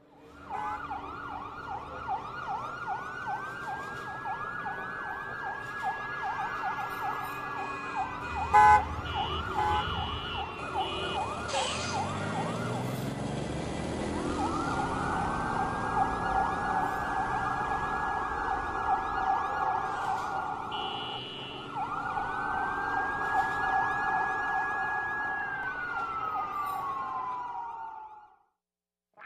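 Emergency vehicle sirens, several at once: a fast warbling yelp under slow wails that rise, hold and fall away. A single sharp bang about eight and a half seconds in is the loudest moment, and the sirens cut off just before the end.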